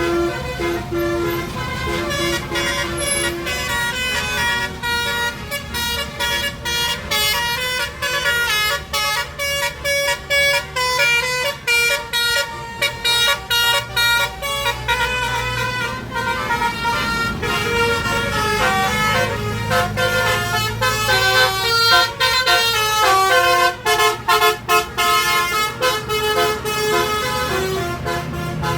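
Bus telolet horns, sets of multi-tone air horns, playing quick melodic runs of notes with short breaks between phrases, over the low running of bus engines.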